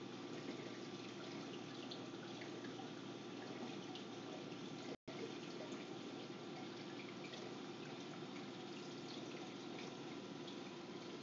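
Reef aquarium water circulating: a steady trickling wash with scattered faint drips. The sound cuts out for an instant about five seconds in.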